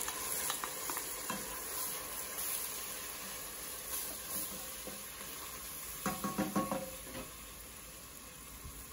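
Soaked rice sizzling in hot oil with onion and ginger as it is tipped into a stainless steel pot and stirred with a wooden spoon, with scraping and light clicks; a brief run of clatter about six seconds in.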